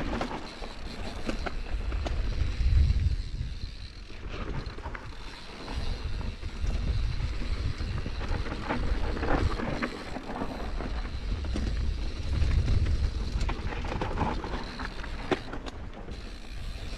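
Mountain bike ridden over rough singletrack: the bike rattles and clicks as it runs over stones and roots, with wind buffeting the microphone in surges.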